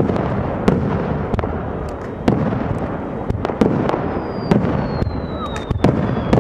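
Aerial fireworks shells bursting in a steady barrage, a sharp bang every half second to a second over a continuous low rumble of echoing reports. From about four seconds in, a thin high whistle slides slowly down in pitch.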